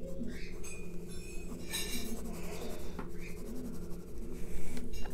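Graphite pencil scratching on drawing paper in short, irregular strokes, over a steady low hum.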